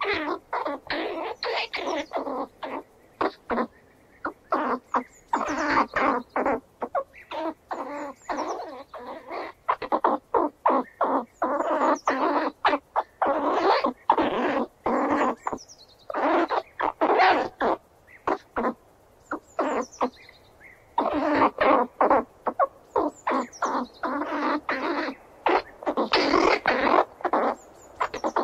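Squirrel chattering: rapid runs of short calls, several a second, in bouts broken by short pauses.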